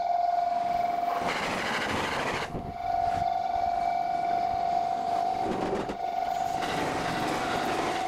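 Level-crossing warning signal sounding as a steady tone, played at ten times normal speed. Twice it is drowned by the noise of trains rushing past: about a second in, and again from about five and a half seconds on.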